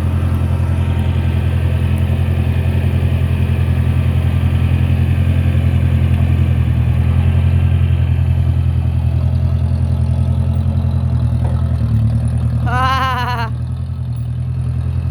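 Restored 1948 farm tractor engine running steadily as the tractor drives, an even low drone. A brief high voice-like call rises and falls about two-thirds of the way through, and the engine grows a little quieter after it.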